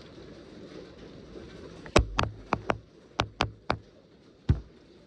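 Hailstones striking the house during a severe hailstorm: about seven sharp knocks in under two seconds, then one more knock near the end, over the steady noise of heavy rain.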